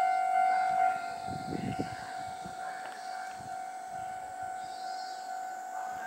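Japanese level-crossing warning alarm sounding its steady electronic tone; it becomes quieter about a second in and keeps on. A brief low rumble comes under it between about one and two seconds.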